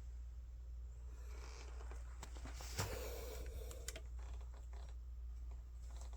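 A few faint clicks and clinks as a chainsaw's bar and rusty chain are handled and checked for play, the clearest just under three seconds in, over a steady low hum.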